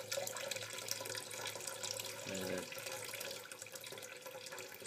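Kitchen tap running steadily, its stream splashing over a small parrot held under it and into a bowl in a stainless-steel sink.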